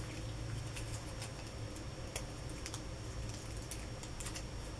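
Faint, irregular small clicks and crackles of fingers peeling glue dots off their paper backing and handling card stock.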